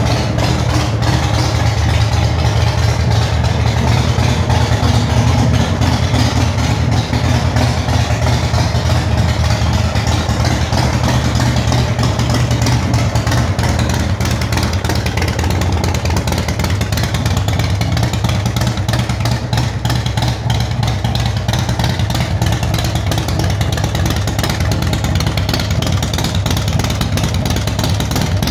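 Big Dog custom motorcycle's V-twin engine idling steadily, an even low pulse through its chrome exhaust pipes.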